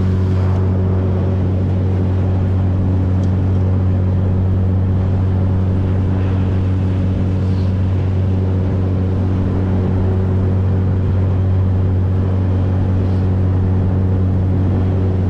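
A fishing boat's engine running steadily under way, a constant low drone with a hiss of wind and water over it.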